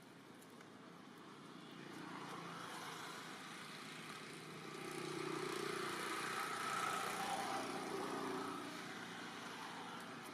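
A distant engine passing by, growing louder to a peak past the middle and then fading.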